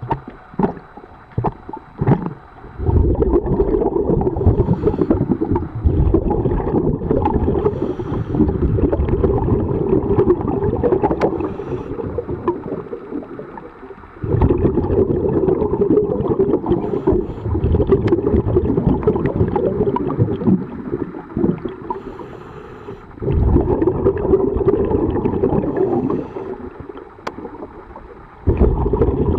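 Scuba regulator breathing heard underwater: long rumbling, gurgling rushes of exhaled bubbles, each starting suddenly and fading, three times, between quieter inhalations with small clicks.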